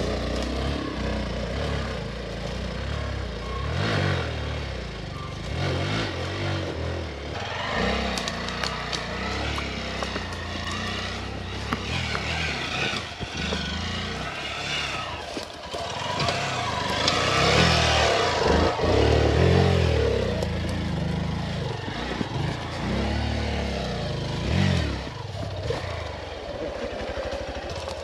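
Hero Xpulse 200 single-cylinder dirt bike climbing a rough trail, its engine revving up and dropping back again and again as the throttle is worked. The revs are highest and loudest about two-thirds of the way through, with scraping and clattering over the engine.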